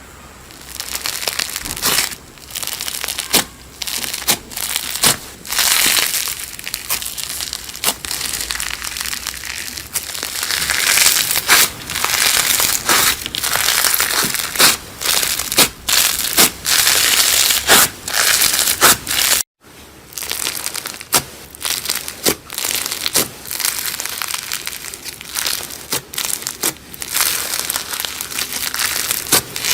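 Slime being pressed and squished by hand, a dense crackling and crunching with many sharp pops. It breaks off abruptly about two-thirds of the way through, then carries on.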